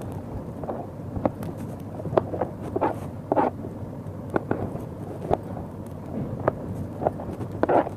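Small knife cutting ridge gourd into chunks on a plastic board: irregular short cuts and taps of the blade against the plastic, over a steady low background noise.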